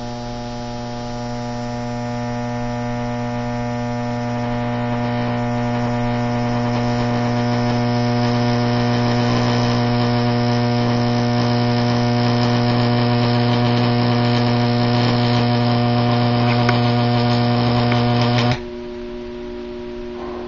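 High-voltage AC arc from two neon sign transformers in parallel (15,000 volts) buzzing across an electrode gap, getting louder as the arc is drawn out longer. About eighteen and a half seconds in the arc breaks and the buzz drops abruptly to a fainter steady hum.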